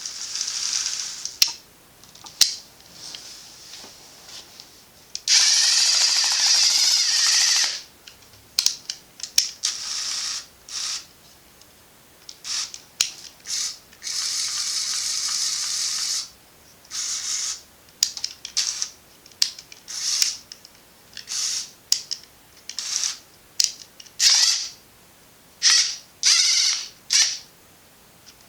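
The electric motors and plastic gears of a remote-controlled Lego Technic excavator whirring in many short start-stop bursts, the longest lasting two to three seconds.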